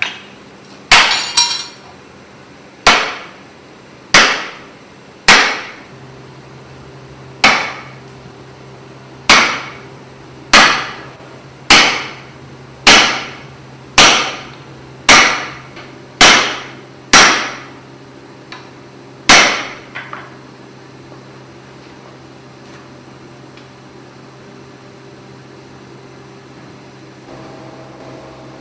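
Blacksmith's hammer blows on a hot splitting chisel driven into a glowing iron axe blank on the anvil, splitting the blank to take a high-carbon steel inlay. About fourteen ringing strikes come roughly one a second and stop about two-thirds of the way through.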